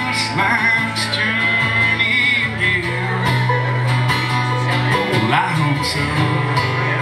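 Live acoustic country-bluegrass music: acoustic guitars strumming and a banjo picking, with a man singing at times.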